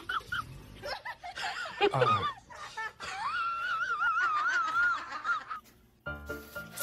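A person laughing in a high, squealing voice, with one long warbling squeal in the middle. About six seconds in, the laughing stops and background music begins.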